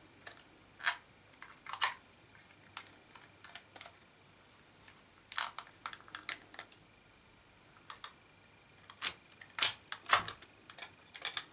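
Scattered sharp clicks and knocks of hard plastic as an SJ4000 action camera is handled and fitted into its clear waterproof housing, which fits tightly and creaks. The loudest clicks come a few seconds in and again near the end.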